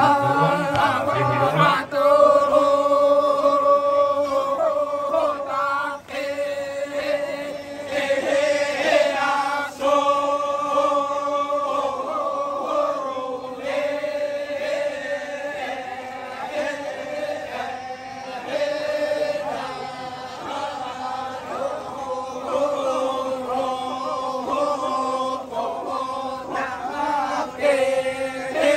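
Badong, the Torajan funeral chant: a group of voices chanting together in long-held notes, with short breaks between phrases.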